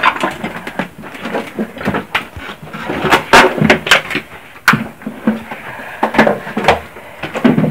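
Footsteps of people walking through the basement: irregular scuffs and knocks, loudest about three to four seconds in.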